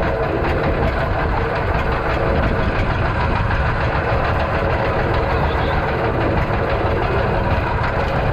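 Small fishing boat's engine running steadily, its sound strongest in the low end.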